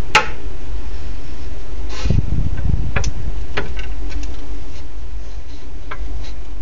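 Metal feeding tongs tapping on the hard tiled floor of a reptile enclosure: a handful of sharp, separate clicks spread over several seconds, with a brief rustling bump about two seconds in, over a steady low hum.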